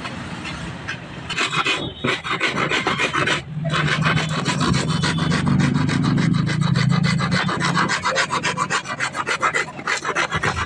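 Rapid rasping strokes of a hand tool scraping across metal, kept up for several seconds with two short breaks early on. A low hum runs under the middle.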